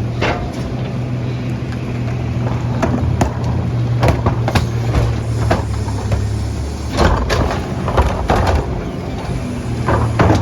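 CNG Mack LR garbage truck's engine running steadily, with scattered knocks and bangs on and off.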